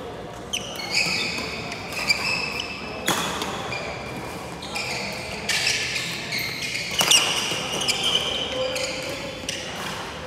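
Badminton rally: rackets striking the shuttlecock in repeated sharp hits at irregular intervals, with short high squeaks of sneakers on the wooden court floor.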